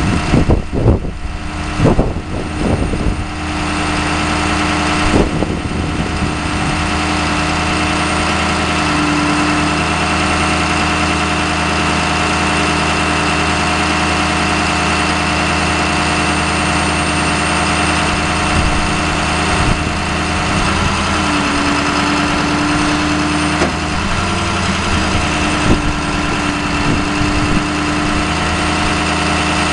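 Ford 6.0L V8 diesel engine of a bucket truck idling steadily while it powers the hydraulics of an Altec aerial boom being moved from its controls. A steady drone carries a tone that shifts slightly a few times, with a few knocks in the first seconds.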